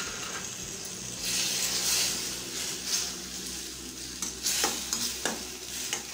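Okra masala fry sizzling in a stainless-steel kadai, freshly wetted with ground masala and tamarind water, while a slotted steel spatula stirs and scrapes it, with several sharp metal-on-metal clinks, more of them in the second half.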